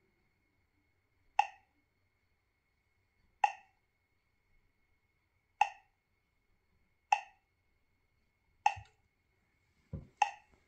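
Touchscreen GPS navigator giving a short electronic blip each time a menu button is tapped: six identical blips about one and a half to two seconds apart, with a dull knock just before the last one.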